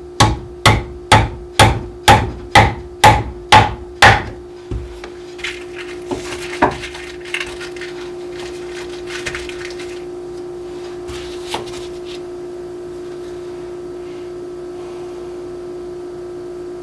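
A hammer driving upholstery tacks into a wooden chair frame: about nine sharp, evenly paced blows, two a second, then a few lighter taps. A steady hum runs underneath.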